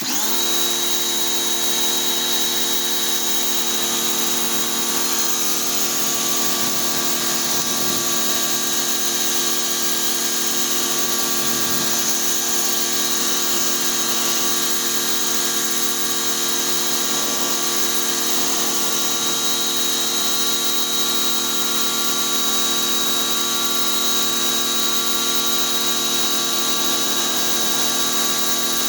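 Pressure washer running steadily: a motor's constant hum with a steady high hiss over it. It starts suddenly and holds unchanged.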